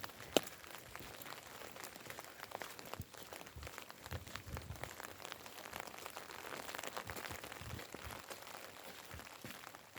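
Rain falling, with many scattered sharp drip taps over a steady hiss and a few soft, low footfalls.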